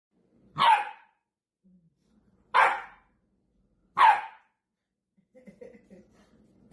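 A dog barks three times, single sharp barks spaced about one and a half to two seconds apart.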